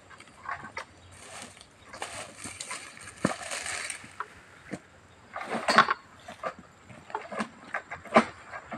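A long-poled harvesting sickle working at an oil palm's crown: irregular scrapes and knocks as it is pulled against the fronds, with a longer stretch of rustling about two to four seconds in and a louder burst near six seconds.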